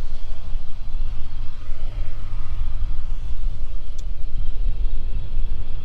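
Tractor engine running steadily while pulling a disc: a continuous low drone, with one small click about four seconds in.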